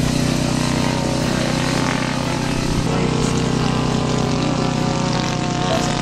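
Radio-controlled model airplane's engine and propeller droning steadily at a constant pitch.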